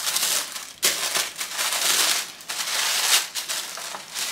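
Tissue paper rustling and crinkling in several bursts as it is pulled out of a gift box and handled.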